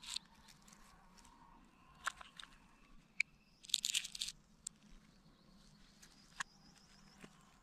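Hands handling a black pistol and small plastic parts over dry leaf litter: scattered sharp clicks a second or two apart, with a short crunchy rustle about four seconds in.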